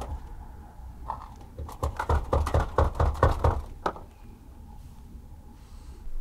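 Repeated banging on a hard plastic Pelican case that is frozen shut, a quick run of thumps at about five a second lasting around three seconds.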